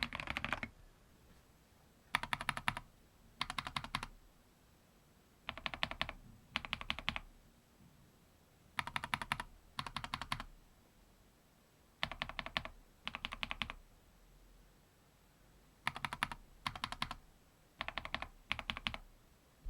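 Mechanical keyboard fitted with Gateron Pro Yellow linear switches (milky housings), typed on in short fast runs of keystrokes, mostly two runs close together, then a pause of a second or two.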